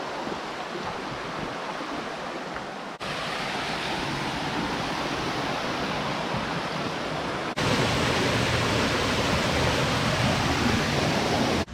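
Flowing water of the Rivelin River rushing steadily, in three abrupt cuts that each get louder, the last one deeper and fuller.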